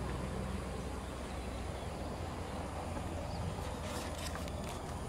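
Steady outdoor background noise with a low rumble, and a few sharp footstep clicks on a hard floor in the second half.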